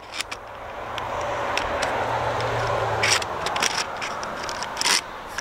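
A strip of framing nails being slid into the magazine of a Ridgid battery-powered framing nailer: a long metallic scrape, then a few sharp clicks as the strip seats and the nail follower snaps into place.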